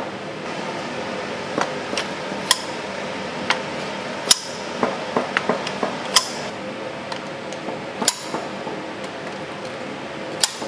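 Kitchen clatter: irregular sharp metal knocks and clinks of utensils against cookware, several ringing briefly, over a steady fan hum.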